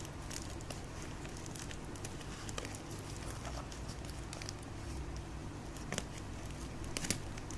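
Scissors cutting through clear plastic wrap on a corrugated cardboard box: scattered crinkles, crackles and small scrapes of the film and cardboard, with a few sharper clicks near the end, over a steady low hum.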